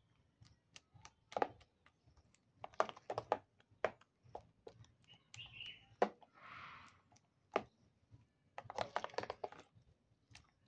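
Metal spoon stirring thick cream in a plastic bowl, clicking and scraping against the bowl in irregular clusters of taps, with a brief soft rustling scrape about six and a half seconds in.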